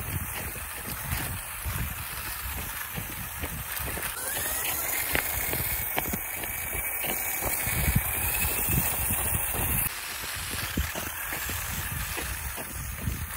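Battery-powered RC rock crawlers driving on asphalt: the small electric drive motors and gearboxes whine over an uneven low rumble with small knocks. A thin whine rises about four seconds in, holds, and stops abruptly near ten seconds.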